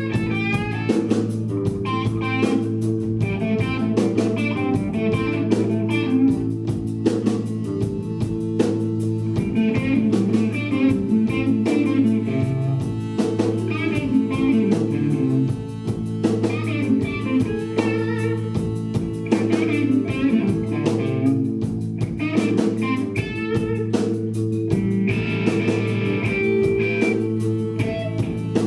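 Live blues-rock band playing an instrumental section: an electric guitar solo with bent, wavering notes over a steady bass line and drums.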